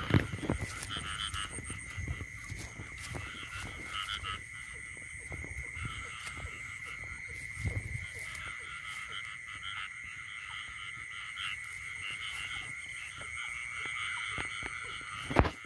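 Night chorus of frogs calling over a steady high-pitched trill, with pulsing calls coming and going. A loud thump at the start and another near the end, with lighter knocks and rustling from the phone being handled.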